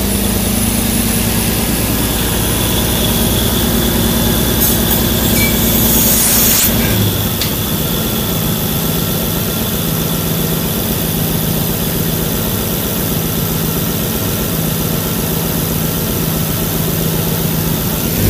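Turbocharged swapped car engine idling steadily under the open hood. About seven seconds in, the deep low rumble drops away and a steady hum carries on.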